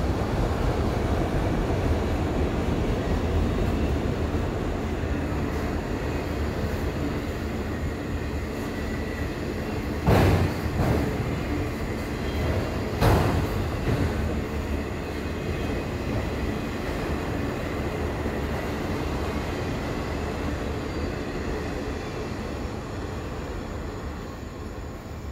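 Freight train of auto rack cars rolling past, with a steady rumble and rattle of wheels on rail. Two sharp loud clanks come about ten and thirteen seconds in, and the noise fades near the end as the last car goes by.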